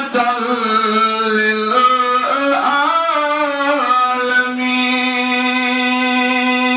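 A man singing a naat, a devotional Islamic poem, as a solo voice. He sings sliding, ornamented notes, then holds one long steady note from about four seconds in.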